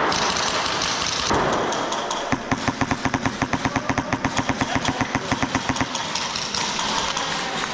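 Airsoft electric rifle firing a long full-auto burst, about ten shots a second for roughly three and a half seconds, starting a little over two seconds in.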